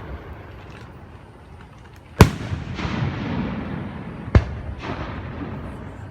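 Fireworks display: two sharp shell bursts about two seconds apart, the first and louder a little over two seconds in. Each is followed by a drawn-out fading echo.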